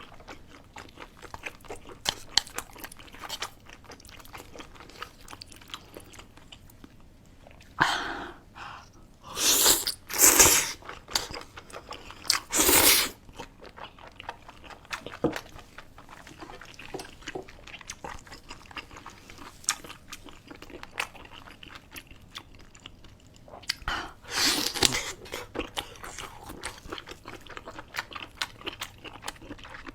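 Close-miked mukbang eating sounds: steady chewing with many small wet clicks, broken by a few louder, noisier bursts of biting or slurping around a third of the way in and again near the two-thirds mark.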